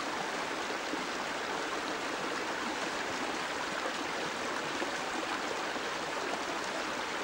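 Steady, even rush of running water from a glacial meltwater stream, with no single splash or knock standing out.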